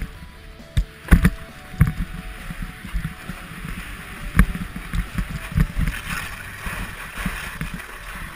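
Sliding fast downhill on a groomed, hard-packed ski slope: a scraping hiss of edges on snow that swells near the end, with irregular knocks as the camera's wearer rides over bumps, and wind rumbling on the microphone.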